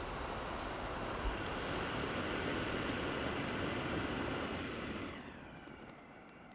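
A steady rushing noise that fades out from about five seconds in.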